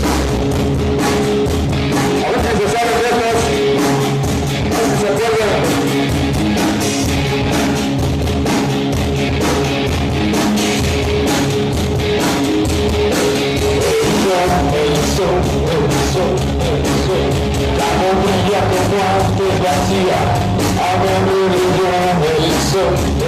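Rock band playing live through a PA system: electric guitars and drum kit, with some singing.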